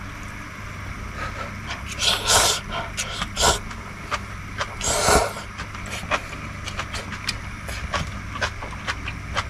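A person slurping hot ramen noodles: three short, hissy slurps, with light clicks scattered between them.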